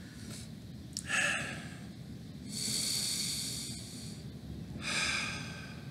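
A man breathing through his nose close to the microphone: three breaths, a short one about a second in, a longer one in the middle and another near the end.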